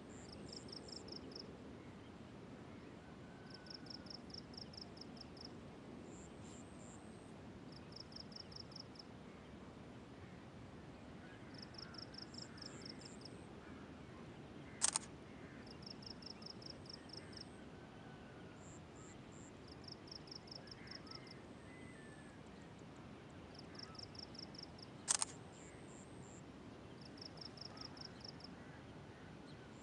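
Outdoor dawn ambience over low, steady background noise. A high, rapid pulsing animal call repeats about every two seconds, with faint bird whistles among it. Two sharp clicks stand out, one about halfway through and one near the end.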